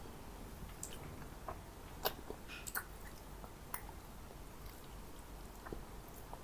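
Close-miked chewing and mouth sounds of a person eating mansaf: scattered wet clicks and smacks over a faint hiss, the sharpest about two seconds in.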